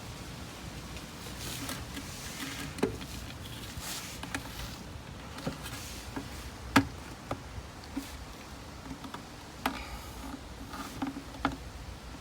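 Scattered light clicks and knocks of PVC pipe and fittings being handled while the plumbing joints are glued, over a low steady background noise.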